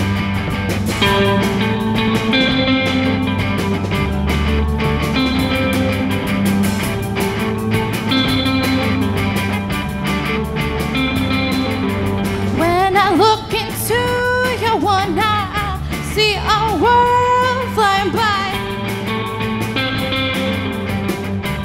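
Live rock band playing: drum kit, electric bass and two electric guitars, with lead vocals that are clearest in the second half.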